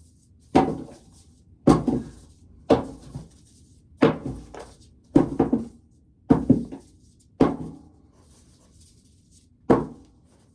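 Corn cobs being tossed one at a time into a 5-gallon pail, a hollow thunk about once a second, eight in all, with a longer pause before the last.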